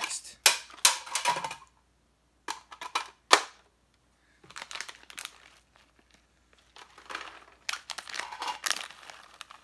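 Sharp plastic clicks and clacks as a Nerf Longstrike blaster is handled, the loudest about half a second and a second in. Later comes a run of crinkling from a plastic packet being handled.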